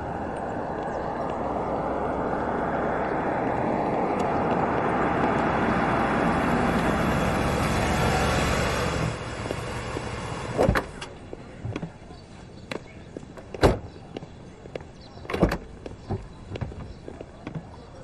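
A vintage car pulls up, its running noise swelling as it approaches and cutting off sharply about nine seconds in. A car door is then opened, with three sharp knocks and a few lighter clicks from the door and footsteps.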